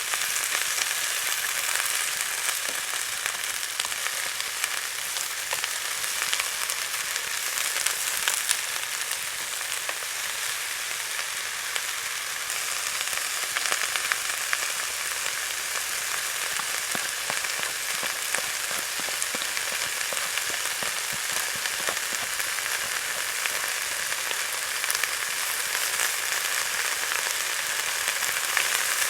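Food frying in hot oil: a steady sizzle with many small pops and crackles throughout.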